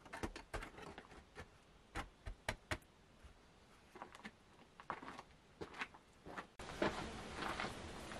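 Wooden oven door being handled at the mouth of a brick oven: a series of sharp wooden knocks and clunks, the loudest about two seconds in. After about six and a half seconds the background suddenly turns louder, with a few soft steps.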